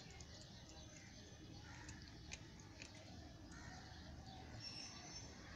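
Faint, scattered wet clicks and crunches of a cat chewing raw prey. A few faint high chirps come near the end.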